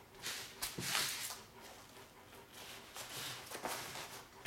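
Airsoft MP7 magazines being handled and slid into a Mayflower nylon magazine pouch: several short bouts of scraping and fabric rustling, with a small sharp knock under a second in.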